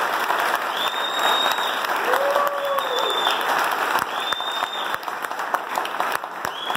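A small audience applauding steadily. Several short high whistles ring out over the clapping, and a voice calls out once a little over two seconds in.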